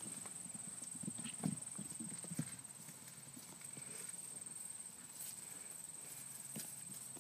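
Hoofbeats of a cantering horse on grass: a run of dull thuds, loudest in the first two and a half seconds and fainter after. A steady high-pitched whine sits behind them.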